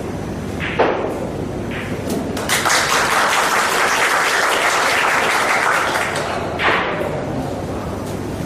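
Audience applauding at a snooker table for about four seconds, starting a couple of seconds in, with sharp clicks of snooker balls striking before and after the applause.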